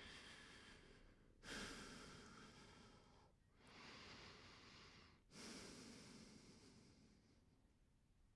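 Slow, soft human breathing: faint airy breaths about every two seconds, each strongest at its start and trailing off.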